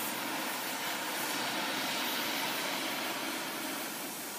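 Oxy-acetylene cutting torch flame hissing steadily as it plays over a steel plate, preheating the metal before the cut.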